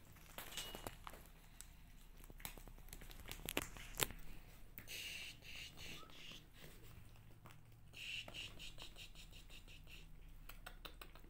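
Kittens pawing and clawing at denim jeans: faint rustling and scratching with scattered small clicks, and two short bursts of quick scratchy ticking about five and eight seconds in.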